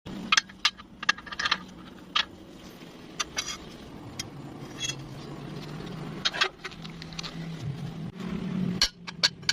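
Irregular sharp metallic clinks and taps, a dozen or so, over a steady low hum: pieces of steel being struck and handled.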